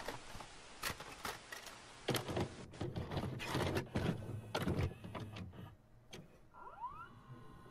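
Clicks, clunks and short motor whirs of a VCR loading a videotape and starting to play, with a short rising whine near the end.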